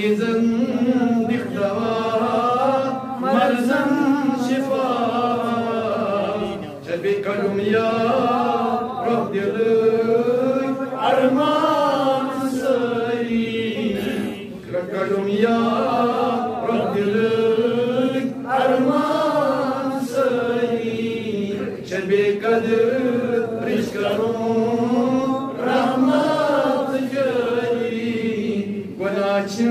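A man chanting a munajaat, a devotional supplication poem, in a slow melodic voice: long held phrases with brief breaths between them.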